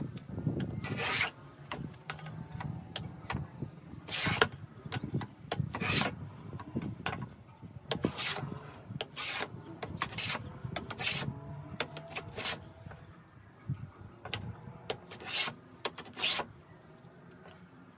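A small hand plane taking repeated strokes along the edge of a mahogany strip, each pass a short, sharp shaving scrape, about once a second, stopping near the end.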